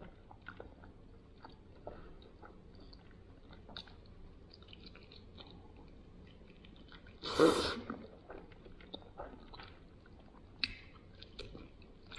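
Close-up chewing and biting of oven-baked rotisserie chicken eaten by hand, with small wet mouth clicks scattered through. A brief loud noise breaks in about seven and a half seconds in.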